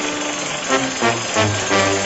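Background music led by brass, a series of short pitched notes over low bass notes.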